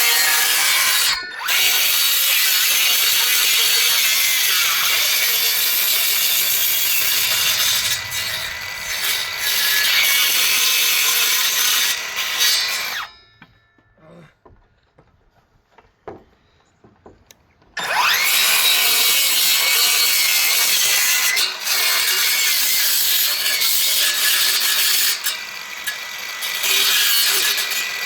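Power saw cutting into a wooden deck board, in two long cuts separated by a pause of about five seconds.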